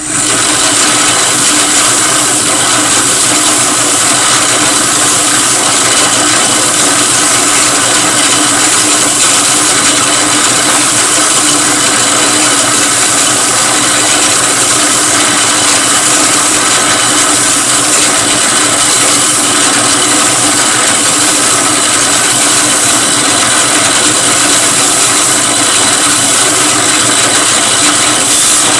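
Drill press running a 220-grit sanding mop while a wooden coaster is pressed against it for final sanding: a loud, steady whir with a constant motor hum.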